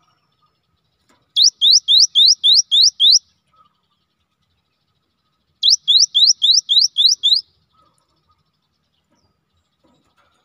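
Cinereous tit (gelatik batu) singing: two phrases of about seven quick, upward-sweeping whistled notes each, at roughly four notes a second, separated by a pause of about two seconds.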